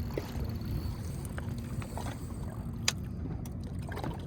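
Steady low rumble of wind and water on a boat out on open water, with a few faint ticks and one sharp click nearly three seconds in.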